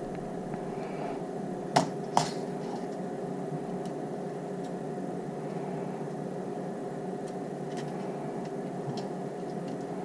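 Steady machine hum with two sharp snaps close together about two seconds in, typical of a battery spot welder's double pulse welding nickel strip to a cell, and a few faint ticks after.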